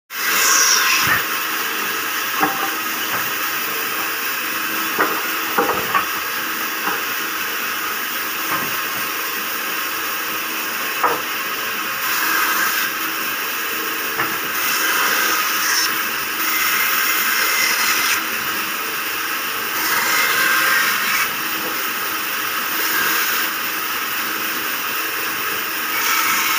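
Vertical band saw running steadily with a motor hum, its blade cutting through wooden planks; the cutting passes bring repeated louder stretches of hiss in the second half. A few sharp knocks in the first twelve seconds.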